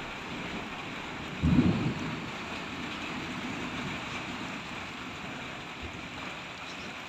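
Thunder in a storm over a steady hiss of rain: a loud low clap about a second and a half in, trailing into a fainter rumble over the next couple of seconds.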